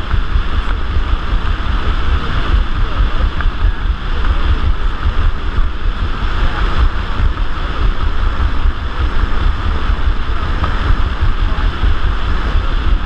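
Wind rushing over a GoPro's microphone in skydiving free fall: a loud, steady rush with a deep, constantly buffeting rumble.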